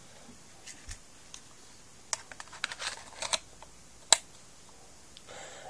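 Airsoft Colt 1911 pistol being handled: a scatter of small metal clicks and clacks, then one sharp click about four seconds in.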